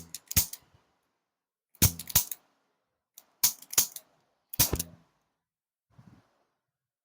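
Handheld chiropractic adjusting tool firing against the patient's back: sharp clicks in short clusters of two to four, every second or two, the last cluster faint.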